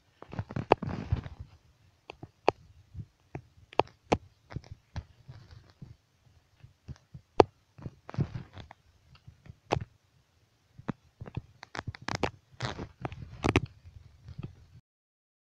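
Irregular clicks, knocks and short scuffs with low thumps: handling and movement noise from someone carrying a handheld camera through a room floored with broken tile.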